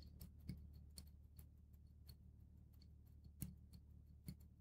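Near silence with a few faint, scattered clicks: steel tweezers tapping against a Seiko 6106 watch movement while the minute wheel is worked into place and won't mesh.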